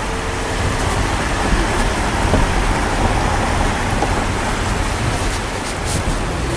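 Steady rushing road and wind noise inside a moving car, with a low engine hum underneath.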